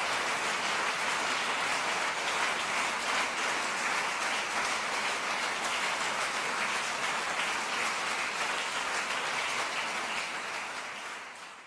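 Audience applauding: a steady, dense clapping of many hands that fades out near the end.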